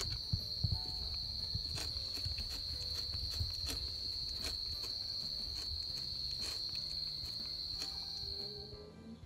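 A steady, high-pitched insect trill, like a cricket's, that stops shortly before the end, with scattered small clicks as a kitten eats from its dish.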